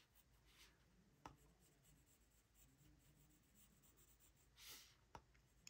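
Near silence with faint colored pencil strokes on paper: a light scratch about half a second in, a soft tick, and a short scratchy stroke near the end, as a dark edge is drawn along a highlight.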